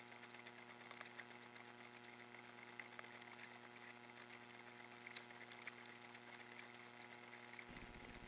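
Near silence: a faint steady electronic hum with scattered faint ticks.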